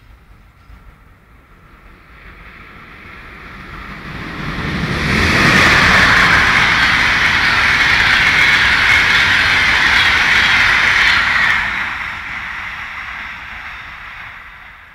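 Locomotive-hauled Intercity passenger train passing at speed: a rushing rumble of wheels on rail builds as it approaches, holds loud for about six seconds, then fades as it moves away.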